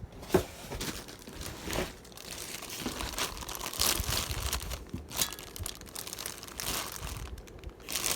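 Packaging crinkling and rustling in irregular bursts as ceiling fan parts are unpacked from their box.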